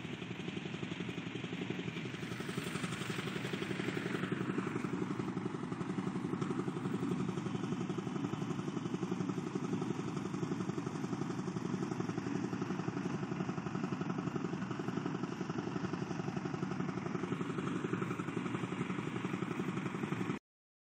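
A tractor's diesel engine running steadily with a fast, even beat. The sound cuts off suddenly near the end.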